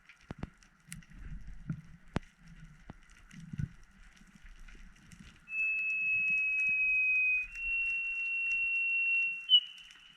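A steady high-pitched whistle heard underwater, starting about halfway through as long held notes of about two seconds each. Each note is a little higher than the last, and the third is fainter. Scattered clicks and crackle run underneath. The whistle's source is uncertain, whales or a sonar.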